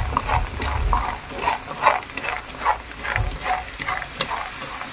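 Roasted peanuts being stirred in a hot frying pan, the nuts scraping and rattling against the pan in quick repeated strokes, about two to three a second. Under them a light sizzle as the garlic-chili seasoning liquid cooks off on high heat.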